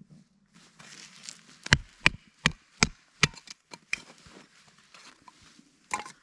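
Batoning firewood: a baton knocking on the spine of a scandi-grind bushcraft knife as it splits wood. There are five sharp knocks in quick succession, then a few lighter ones.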